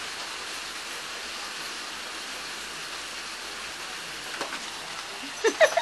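Steady rain falling, an even hiss. Near the end a few short, pitched voice-like sounds break in over it.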